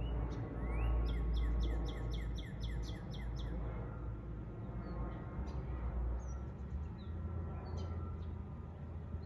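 A jet airliner passing overhead makes a steady, distant low rumble. Over it, a songbird sings a quick run of about ten repeated notes in the first few seconds, followed by a few scattered chirps.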